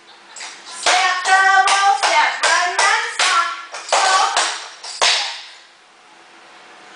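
Dance steps: feet striking and landing on a hard floor about twice a second, stopping about five seconds in. A voice sings a tune along with the steps for a few seconds in the middle.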